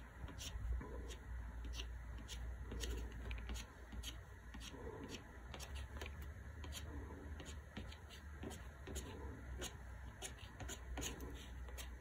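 Watercolor crayon scratching across watercolor paper in short, quick strokes, a few a second, as grass blades are drawn, over a low steady hum.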